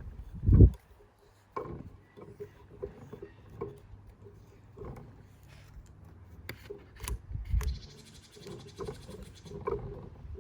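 Low thumps, the loudest about half a second in and another near the middle, with scattered light knocks and taps of objects being handled.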